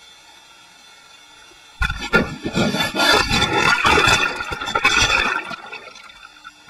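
A tiger shark biting and mouthing an underwater camera housing, heard through the housing. A faint hiss of water gives way, about two seconds in, to a dense burst of sharp knocks, clicks and scraping with rushing water. It dies away again after about five seconds.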